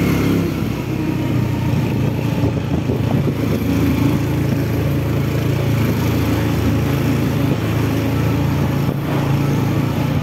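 Motorcycle engine running at a steady, even speed while riding slowly along a street.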